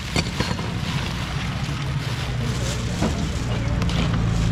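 A low, steady engine hum that grows a little louder near the end, with a few light knocks over it.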